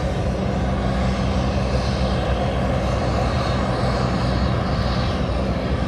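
Aircraft engine running, a loud, steady low drone.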